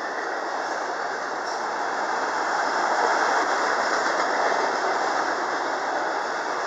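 Autorack cars of a freight vehicle train rolling past: a steady noise of steel wheels on rail that swells slightly a few seconds in.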